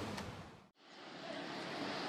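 Faint roadside traffic noise that fades, drops out to silence for a moment about halfway through, then comes back as a steady low hum.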